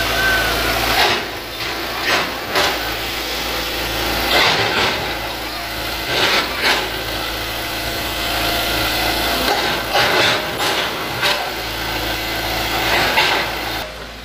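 Hitachi hydraulic excavator's diesel engine running steadily, with about ten sharp cracks and knocks over it.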